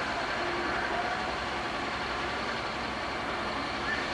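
Heavy diesel engine of a barge crane running steadily.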